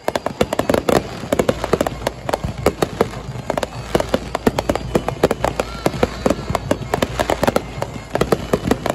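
Aerial fireworks going off in rapid succession: a dense, near-continuous string of sharp bangs and crackles, several a second.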